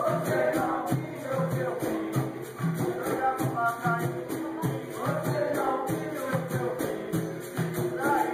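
Capoeira roda ensemble playing: berimbaus with caxixi shakers, a pandeiro and an atabaque drum keep a steady repeating rhythm, with a voice singing over it.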